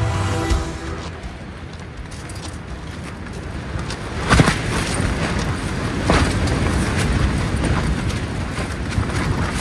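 Wind buffeting a tent: a steady rush against the fabric, with two sharper gusts or flaps about four and six seconds in. A short tail of music cuts off in the first half second.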